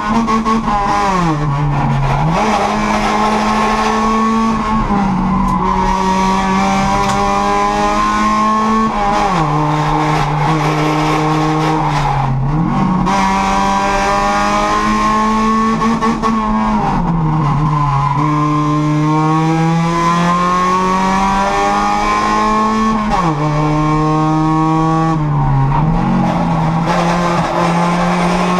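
Race-prepared Honda Civic's four-cylinder engine, heard from inside the stripped cabin, pulling hard under full throttle with its pitch rising, then dropping sharply every few seconds as the driver shifts or lifts for the bends, and climbing again.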